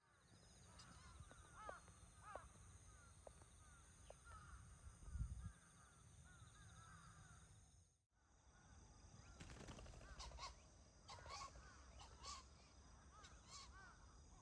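Faint outdoor ambience of many birds giving short repeated calls over a steady high-pitched insect chorus. It cuts out for an instant about eight seconds in, then carries on the same.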